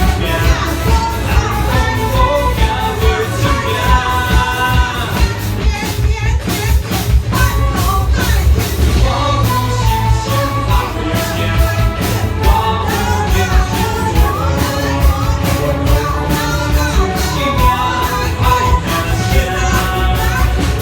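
Orchestra playing a pop-style song with a singer, over a steady beat and heavy bass.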